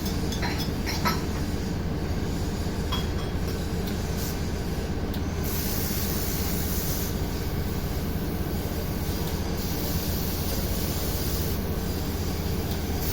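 Steady machinery running on a factory floor: a continuous low hum and rumble with some hiss above it, and a few short clicks in the first three seconds.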